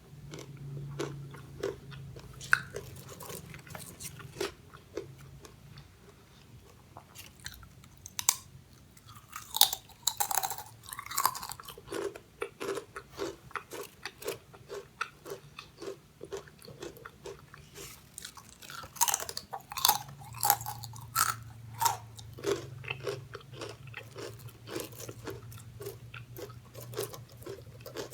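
A person biting and chewing crunchy fried snack chips: a steady run of crisp, sharp crunches, densest about ten seconds in and again around twenty seconds in.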